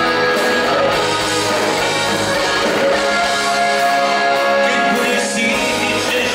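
Live rock band playing through a concert PA, with held keyboard chords.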